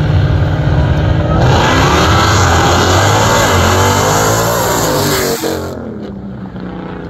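Two high-performance Jeep Grand Cherokee V8s idling loudly on the drag strip start line, then launching hard about a second and a half in. The engines run at full throttle, their pitch climbing and dropping through the gear changes. About six seconds in the roar drops away sharply as they lift off far down the track.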